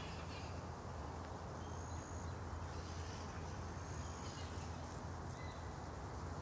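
Outdoor ambience: a steady low hum under an even hiss, with a few faint, short, high-pitched chirps.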